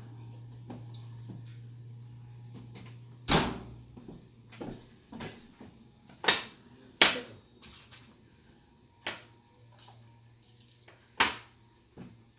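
Kitchen oven door pulled open with a loud knock about three seconds in, then a string of sharp knocks and clatters as the baking pan is taken out and handled. A steady low hum runs under the first three seconds.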